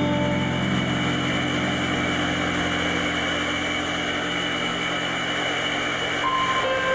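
Electronic drone from a live piano-and-electronics set: a dense, steady wash of noise over sustained low tones, with a few held higher notes coming in near the end.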